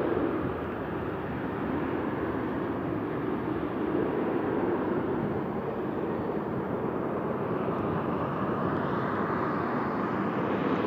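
Boeing 737 jet engines at takeoff thrust, a steady rushing rumble as the airliner lifts off and climbs away.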